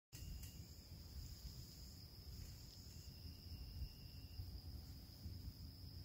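Insects singing: a steady, unbroken high trill, joined for the first few seconds by fainter higher and lower trills, over a low rumble.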